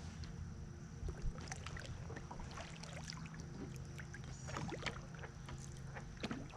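Kayak moving quietly on calm water: faint paddle dips and water dripping, with a couple of small splashes.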